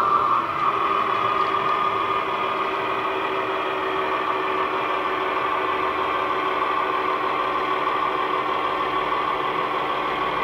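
Model Class 41 Warship locomotive's LokSound V5 DCC sound decoder playing a recorded MAN L12V diesel engine through the model's EM2 speaker, running steadily as the model moves. The engine note dips slightly about half a second in, then holds steady.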